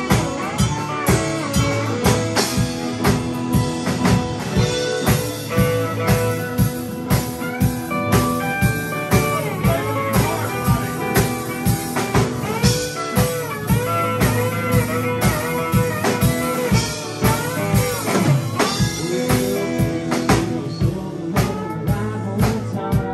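Live band playing an instrumental blues-rock passage: a guitar lead line full of bent notes over strummed acoustic guitar and a steady drum kit beat.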